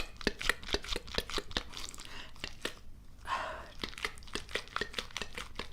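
Close-up crisp clicking and crackling, several sharp ticks a second, with a short breathy hiss about three seconds in.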